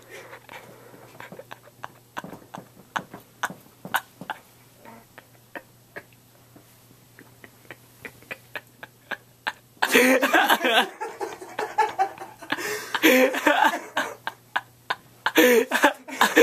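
Scattered short clicks and soft rustling for about ten seconds, then loud excited voices in several bursts from about ten seconds in, as the pranked sleeper wakes up.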